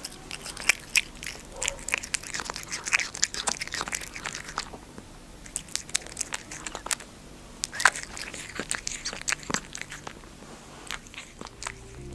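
Cat eating soft cake, close to the microphone: an irregular run of chewing clicks that thins out over the last couple of seconds.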